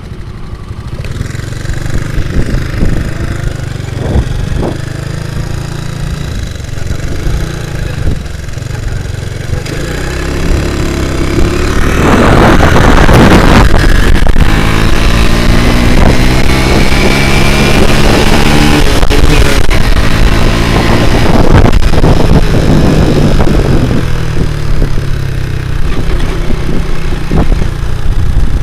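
Small single-cylinder four-stroke motorcycle engine (a Honda Grand engine in a Honda C70 frame) running at low revs, then opened up about twelve seconds in. Its note climbs in several rising steps as it accelerates through the gears, then eases off near the end.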